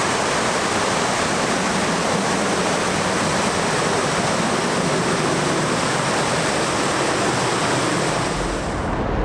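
Steady rush of falling water, an even hiss with no rhythm. Near the end it cuts off abruptly and a low rumble takes its place.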